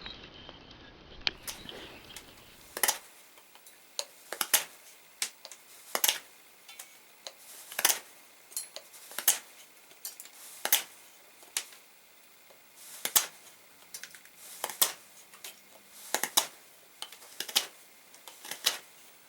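Light, sharp taps in a slow, steady rhythm, about one every second and a half and often doubled: a hammer or mallet tapping a wooden tool handle and brass collar onto the tang.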